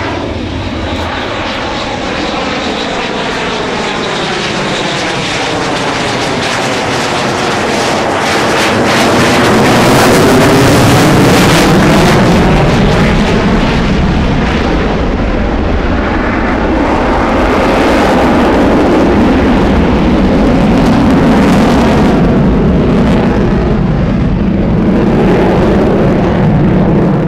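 Eurofighter Typhoon's twin EJ200 jet engines as the fighter flies past during its display, the sound swelling to its loudest about ten seconds in and staying loud with a second swell later on.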